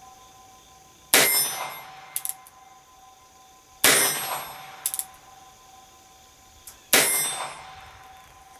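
Three .22 LR shots from a Ruger Bearcat single-action revolver, about three seconds apart. Each crack is followed by a lingering metallic ring. Between shots there is a short double click as the hammer is thumbed back for the next shot.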